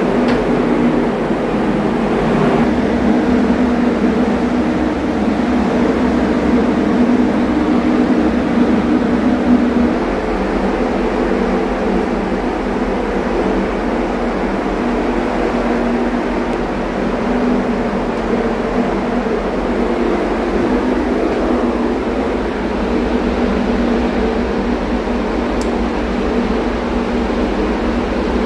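Steady drone of ship's machinery with a constant low hum at a few fixed pitches, before the emergency generator is started.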